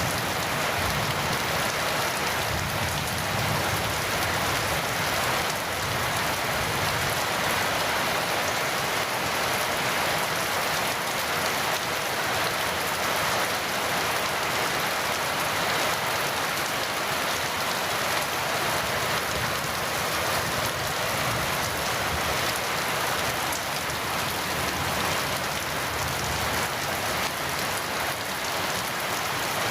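Heavy rain falling steadily, a dense even hiss of drops on a surface.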